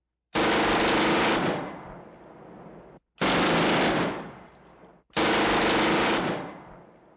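Three bursts of automatic gunfire, each about a second long and fading away in a long echoing tail, laid as a sound effect over title graphics. The bursts come near the start, about three seconds in and about five seconds in.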